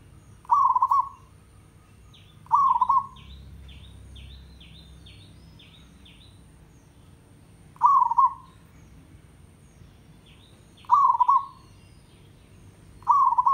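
Zebra dove giving its short, rolling, warbled coo five times, each about half a second long, at uneven gaps of two to five seconds. Fainter runs of quick high chirps from another small bird sound between the coos.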